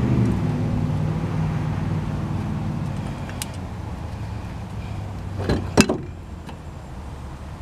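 A vehicle's low engine hum slowly fading away, with a faint click about three seconds in and a quick couple of sharp metallic clanks near the end as the loose brake caliper is shifted and hung on the upper control arm.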